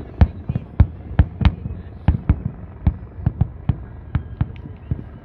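Fireworks bursting in a rapid, irregular run of sharp bangs, about three or four a second.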